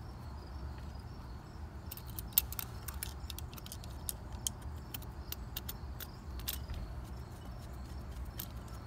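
Scattered small metallic clicks and taps of a screw being driven by hand into a light-fixture mounting bracket, one sharper click about two and a half seconds in, over a steady low rumble.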